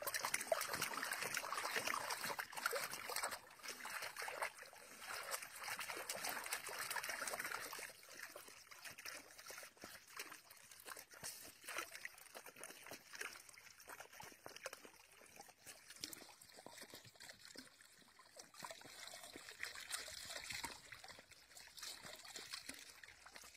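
Water running from a garden hose into a shallow plastic paddling pool, with a dog sloshing and splashing in it. The running water is louder for the first several seconds, then quieter, with small splashes throughout.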